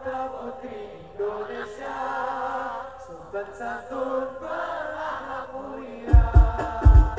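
Live sholawat (Islamic devotional) song played over a concert sound system, heard from within the crowd: voices chanting a slow, drawn-out melody, then about six seconds in deep hadroh drum beats come in.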